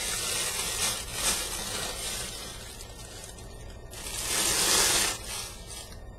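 Packaging rustling and crinkling as it is handled, with a louder stretch of rustling about four seconds in.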